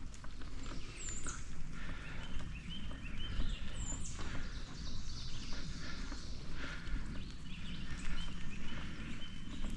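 Wild birds chirping and calling, with a few short high downward-sliding notes, over a steady low rumble from the moving bicycle on the dirt trail.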